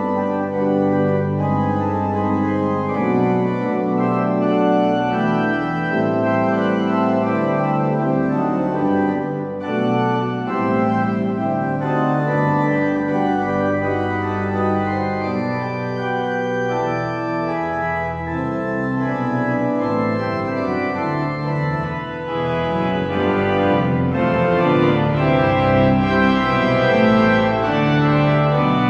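Organ playing a postlude of sustained, full chords that change every second or two, growing a little louder near the end.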